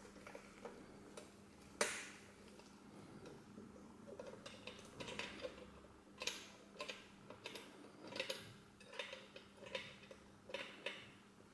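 Faint, irregular clicks and light knocks as gloved hands grip and turn a metal-bodied wall clock with a glass front, with one sharper knock about two seconds in. A faint steady hum lies underneath.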